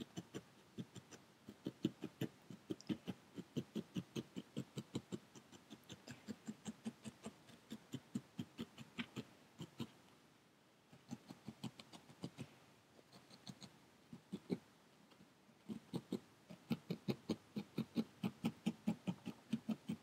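Barbed felting needle stabbing repeatedly through wool roving into a foam pad, about three to four soft pokes a second, with short pauses near the middle and about three-quarters through. This is the tacking stage of needle felting, fixing one piece of wool onto another.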